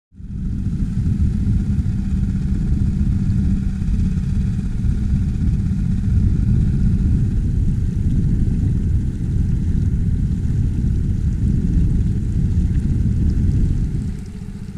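Outboard motor on an inflatable boat running steadily at low speed, a low even drone that eases off slightly near the end.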